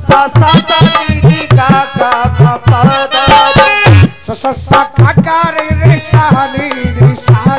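Instrumental interlude of Braj rasiya folk music: a hand drum plays a fast, dense rhythm under an ornamented melodic line.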